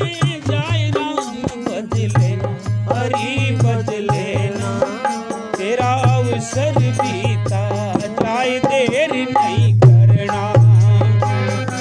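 Hindi devotional bhajan music: a wavering melody over a steady tabla rhythm.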